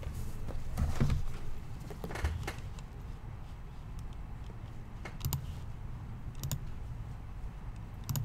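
A shrink-wrapped trading-card box being moved and set down on a mat, with rustling and knocks in the first couple of seconds, then a few scattered light clicks.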